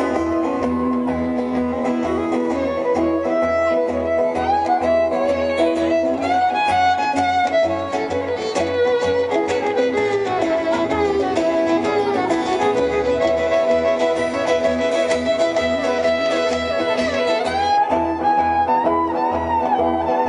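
Live string band playing an instrumental break: a fiddle carries the melody over strummed guitar and a steady low bass line.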